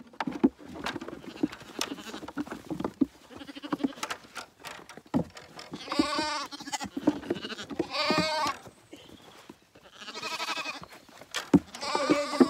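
Zwartbles lambs bleating, several wavering calls in the second half, after a few seconds of scattered knocks and clatter around the gate.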